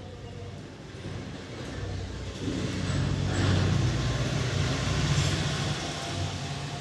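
A motor vehicle's engine running, growing louder a couple of seconds in, holding for a few seconds, then easing off near the end, like a vehicle passing.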